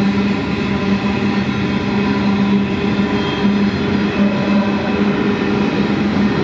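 Mid-train diesel-electric locomotive of a coal train working hard in notch eight up a long grade: a loud, steady engine drone over the rumble of the coal wagons rolling past.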